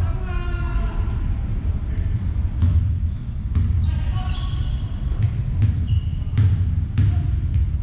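Basketball game play in a sports hall: the ball bouncing on the court, repeated short high sneaker squeaks and players' voices, all echoing in the large hall.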